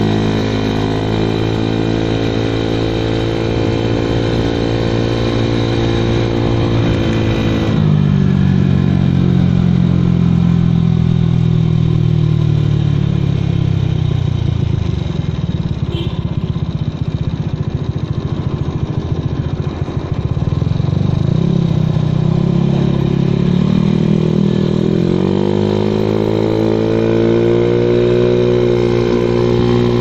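Honda Vario 110 carburettor scooter's single-cylinder engine running through an AHM standard racing exhaust on the move. The engine note climbs steadily, drops sharply about eight seconds in and sinks to a low, rougher running. It then rises again from about twenty seconds in as the scooter picks up speed.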